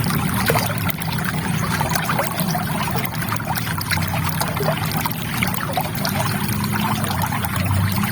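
River water trickling steadily, a continuous run of small splashes and drips.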